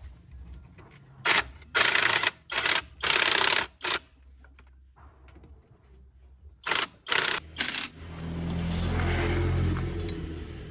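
A series of short, sharp hissing bursts, a few of them in quick succession, then three more after a pause. Near the end a low engine rumble swells up and fades away.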